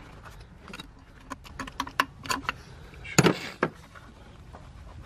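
Gloved hands working at a small retaining clip in a car's engine bay, making a run of light clicks and rattles. About three seconds in there is a louder scraping rustle.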